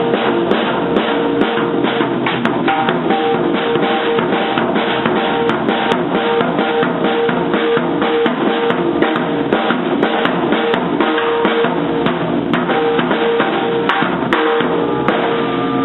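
Drum kit played by a child, struck fast and unevenly with no pauses, drums and cymbals ringing together.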